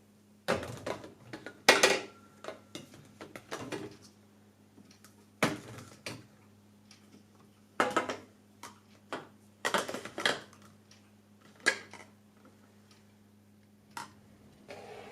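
Hard household objects being handled and set down, a string of irregular clinks and clatters, loudest about two seconds in, over a faint steady low hum.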